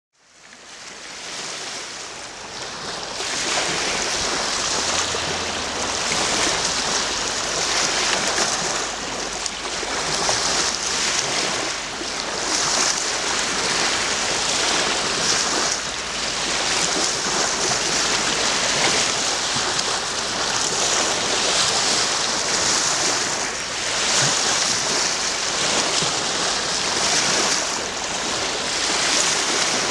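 Small Lake Huron waves washing onto a pebble beach and around boulders at the waterline, surging gently about every two seconds. The sound fades in over the first few seconds.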